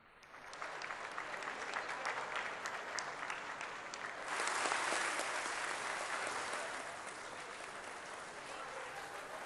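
A large crowd applauding, many hands clapping at once. It starts about half a second in, grows louder at about four seconds, then eases off a little.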